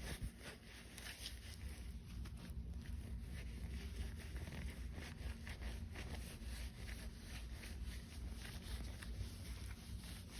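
Scattered small clicks and rustling of gloved hands working on motorcycle parts, over a low steady hum.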